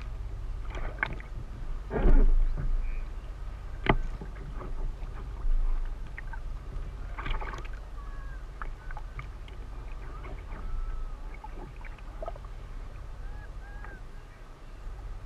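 Kayak paddle strokes splashing and water slapping against the kayak hull, over a steady low rumble; the loudest splash comes about two seconds in.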